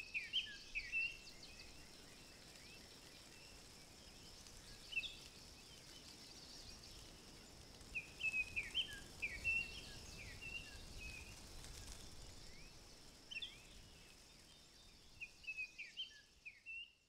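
Small woodland birds calling in short, quick chirps that come in scattered clusters, over a faint steady high hiss.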